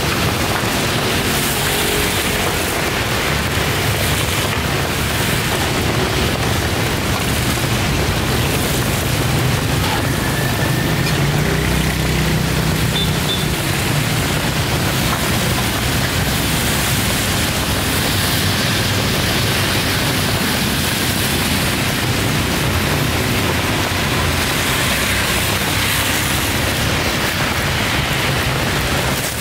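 Steady rain falling, a loud, even hiss with a low rumble underneath.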